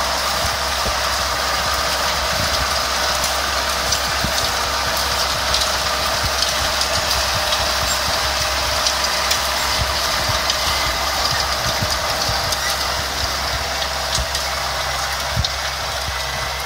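Tractor engine running steadily while it drives a Kerner X-Cut Solo 300 front packer, whose cutting discs and rollers crumble the soil for a seedbed. A continuous rushing rumble with scattered clicks.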